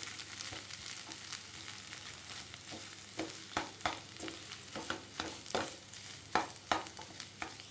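Slotted spatula stirring and pressing mashed potato in a kadai of hot oil, scraping and tapping on the pan over a faint sizzle. From about three seconds in, the spatula strikes the pan in sharp taps, about two or three a second.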